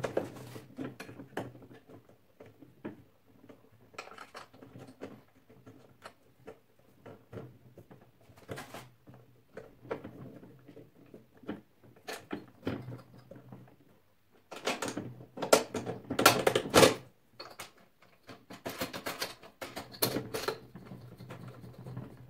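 Irregular clicks and knocks of the handlebar parts of a Parkside PRM 1200 A1 electric lawnmower being fitted together by hand, with a louder cluster of knocks about two thirds of the way through. A faint steady hum runs underneath.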